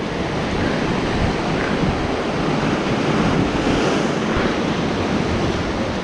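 Sea surf washing against shore rocks, a steady rush of waves that swells slightly mid-way, with wind buffeting the microphone.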